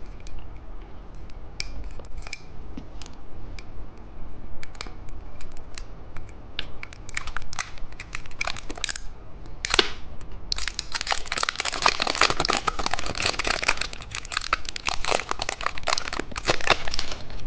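Plastic candy wrapper being torn open and crinkled by hand: scattered crackles at first, then a dense, louder run of crinkling for about the last seven seconds.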